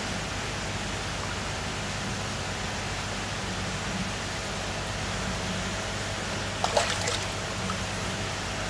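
Steady rush of moving water in a koi inspection bowl over a low hum, with a short burst of clicks a little past two-thirds of the way through.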